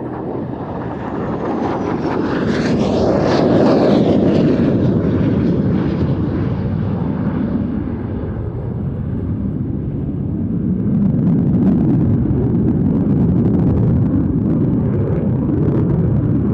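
Saab 37 Viggen's single Volvo RM8 afterburning turbofan jet engine, heard as loud jet noise. It builds to a peak about four seconds in with a whine falling in pitch as the jet passes, eases off, then swells again from about eleven seconds.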